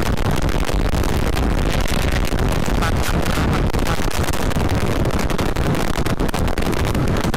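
Heavy wind noise on the microphone over the running engine of a 2007 Yamaha Vixion, a 150 cc single-cylinder four-stroke motorcycle, cruising at about 80 km/h.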